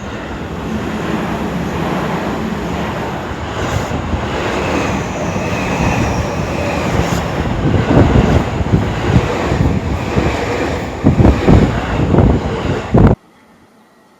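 Seibu Ikebukuro Line electric train passing close by at speed, a loud rush of wheels and running gear with its wheels knocking over the rail joints, the knocks heaviest near the end. The sound cuts off suddenly about a second before the end.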